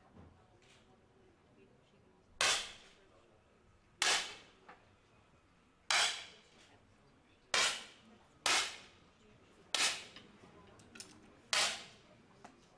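10-metre air pistols firing: seven separate sharp pops at uneven intervals, each with a short ringing tail, one competition shot from each remaining finalist.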